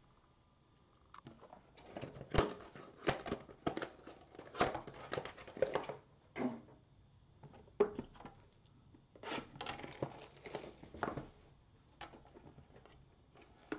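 Trading-card box packaging being handled and torn open by hand: irregular bursts of crinkling and tearing with a few sharp clicks, fading to light handling near the end.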